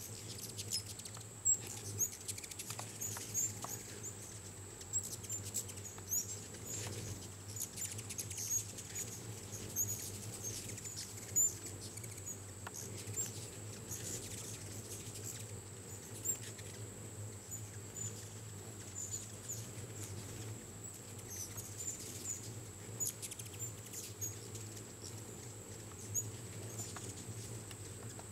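A crowd of hummingbirds feeding and squabbling: a constant stream of short, high chips and twitters over the low buzz of their wings, with quick whirs as birds dart close past.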